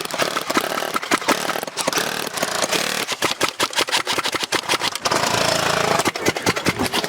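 Airsoft guns firing in rapid, overlapping bursts of shots, with a steadier stretch of continuous automatic fire about five seconds in.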